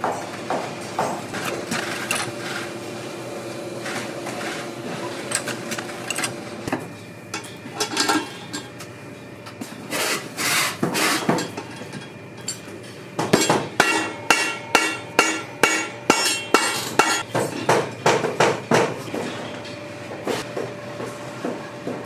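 Hammer blows at a cobbler's bench, struck on a boot fitted on a metal last. Scattered knocks at first, then a steady run of strikes a little over two a second, each with a metallic ring.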